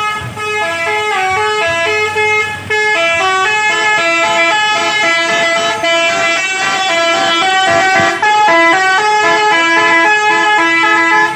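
Buses' musical 'telolet' air horns sounding together: several overlapping tones stepping quickly from pitch to pitch like a tune, stopping abruptly near the end.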